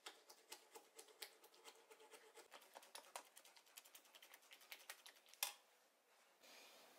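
Faint, rapid, irregular clicks and taps of a metal utensil working against a stainless-steel chinois strainer as purée is pushed through it, with one sharper click about five and a half seconds in. A faint steady hiss follows near the end.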